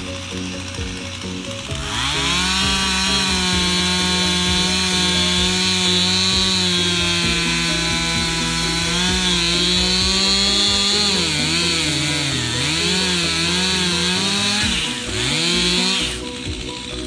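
Stihl chainsaw at full throttle cutting into a maple trunk. Its pitch sags and recovers several times as the chain bogs in the cut, then it revs briefly and drops away near the end.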